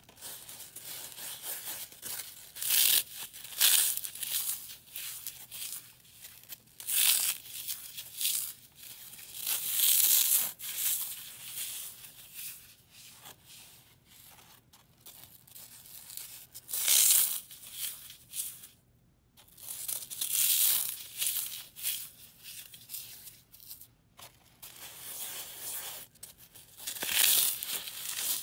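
Dry floral foam crushed and crumbled between the fingers: gritty crunching and crackling in irregular bursts, the loudest a few seconds apart, with softer crumbling between.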